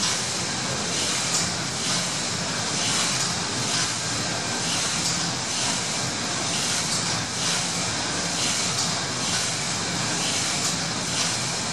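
The paddle steamer Gallia's steam engine is running below full speed. It makes a steady mechanical rush of moving rods and cranks, with a hiss that pulses in a slow, regular beat.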